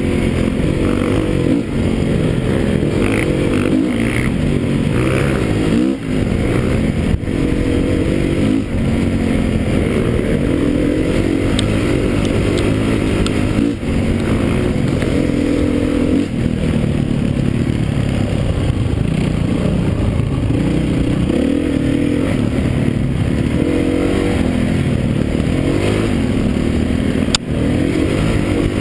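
Enduro dirt bike engine heard close up from the bike being ridden, its revs rising and falling over and over as it rides a rough, rocky dirt track.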